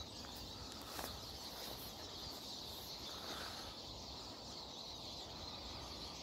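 A flock of siskins twittering up in the trees: a faint, steady, high-pitched chatter, with a small click about a second in.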